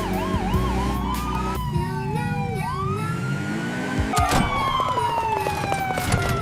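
Police siren wailing with a fast up-and-down pitch for about a second, then sliding cartoon sound-effect tones, a sharp hit about four seconds in, and a long falling tone.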